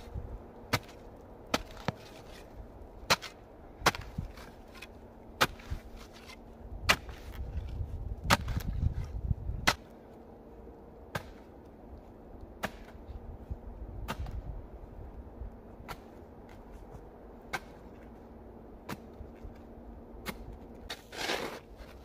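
A steel shovel blade is being driven into earth to dig a pit. It gives sharp strikes roughly once a second, with a low rumble for a couple of seconds in the middle.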